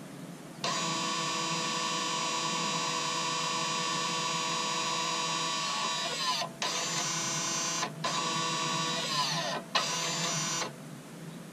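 Electric parking brake motors (V282/V283) on the rear brake calipers whining as they drive the caliper pistons closed after a pad change. One steady run of about five seconds drops in pitch and cuts out, then three shorter runs follow, two of them also dropping in pitch before stopping.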